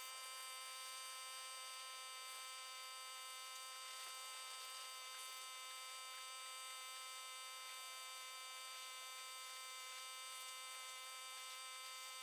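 Pressure washer running: a steady, even whine over a faint hiss.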